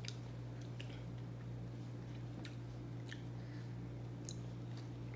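A person chewing food close to the microphone, with scattered wet mouth clicks, over a steady low hum.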